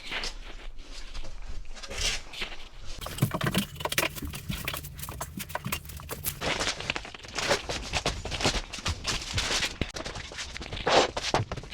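Irregular scraping, rustling and tapping from handling and marking vinyl flooring planks, with a faint low hum from a few seconds in.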